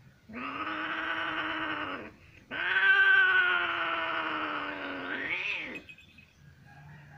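Domestic cat yowling as mating ends: two long, loud drawn-out cries, the second louder and rising in pitch just before it stops. It is the cry a female cat gives at the end of copulation.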